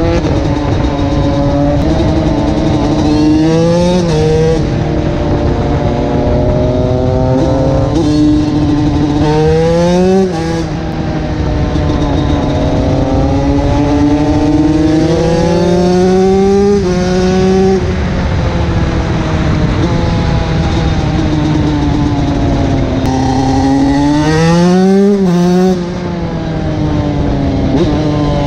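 TM SMR 125 two-stroke supermoto engine with its full aftermarket exhaust, heard from on board under way. The revs climb steeply in pitch about four times as the throttle is opened and fall back between pulls, over a steady rush of wind noise.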